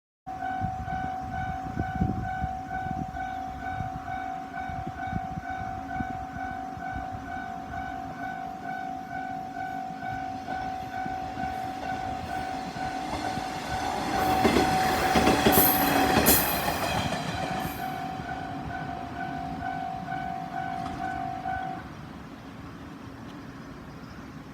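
Japanese level-crossing warning bell ringing with a steady tone and a rapid repeating ding. About halfway through, a diesel railcar passes over the crossing in a louder rush of rail noise with sharp high streaks. The bell then stops, a few seconds before the end.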